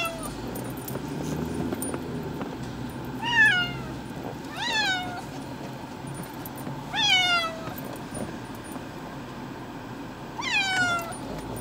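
Siamese cat shut in a pet carrier meowing in distress: four drawn-out meows a few seconds apart, each rising sharply and then falling in pitch.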